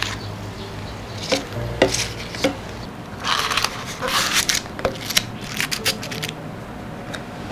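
Paper baking liners crinkling and rustling as mini cheesecakes are lifted out of a metal muffin tin and set into a plastic container, with light taps and clicks against the tin and the plastic. The crinkling is longest a little past the middle.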